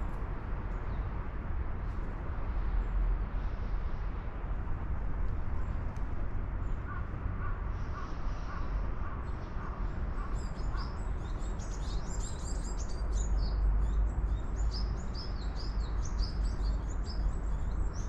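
Birds calling outdoors: a short run of lower calls, then dense high chirping from about ten seconds in, over a steady low rumble.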